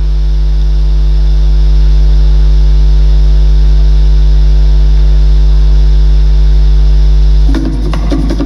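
Loud, steady electrical mains hum: a low buzz with a ladder of evenly spaced overtones. About seven and a half seconds in, the hum drops and music with drums starts.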